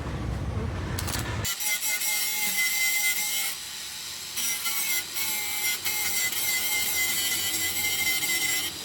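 Power tool working a rusty car body panel. It starts with a rough scraping for about a second and a half, then settles into a steady high whine over a hiss that drops out briefly midway.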